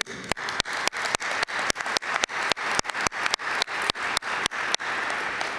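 Audience applauding, with one person's hands clapping close to the microphone in sharp, regular claps about four a second that stop near the end while the crowd's applause carries on.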